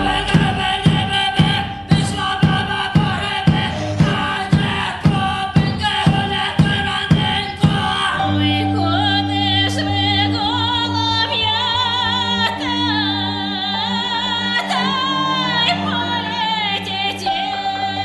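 Women's voices singing with a cello: for the first half a sharp beat strikes about twice a second under the voices, then around eight seconds in the beat stops and long low held notes carry a single wavering vocal line.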